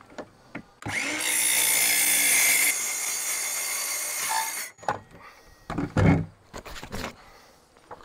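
DeWalt DCS373 cordless metal-cutting circular saw starting up about a second in and cutting through a refrigerator's sheet-metal skin. It runs for about four seconds, loudest in the first half, then stops. A few sharp knocks and clatters follow, one loud one about six seconds in.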